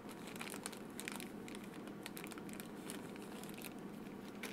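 Small clear plastic parts bags being handled: faint crinkling with scattered light clicks.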